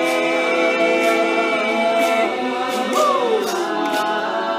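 All-male a cappella group singing, holding a sustained close-harmony chord on the song's last line. One voice slides down in pitch about three seconds in.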